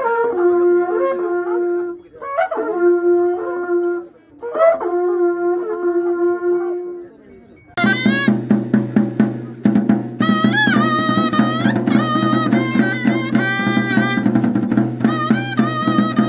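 Coiled cattle-horn trumpets blown in three long held notes of about two seconds each. Then, after a cut, a small wind pipe plays a quick, wavering high melody over steady beats on a large wooden bass drum.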